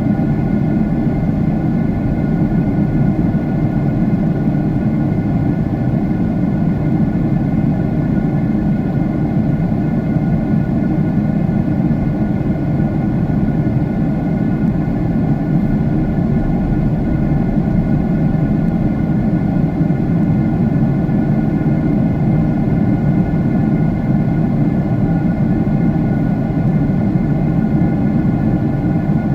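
Steady jet engine drone and airflow noise inside an airliner cabin in cruise: a constant low rumble with a few faint steady whining tones above it.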